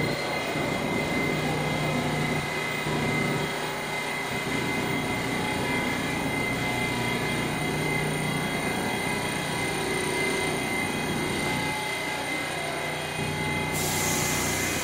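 R68 subway train idling at the platform: a steady hum of its onboard equipment with a thin high whine over it. A hiss comes in near the end.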